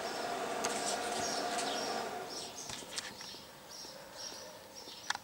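Faint high bird chirps in the background over a steady hum that fades out about two seconds in, with a few light clicks.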